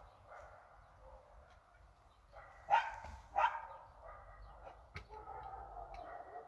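Dog barking: two loud barks in quick succession about three seconds in, with fainter dog sounds around them.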